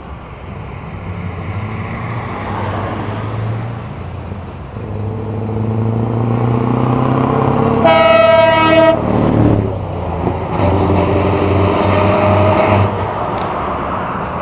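Scania V8 truck engine revving up as it approaches, then a blast of air horn lasting about a second as it passes. The engine note drops as the truck goes by, and another truck engine follows close behind.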